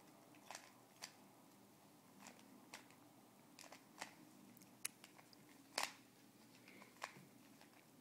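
Plastic Rubik's Cube layers being twisted by hand: irregular sharp clicks, about nine of them, with one louder click a little before six seconds in.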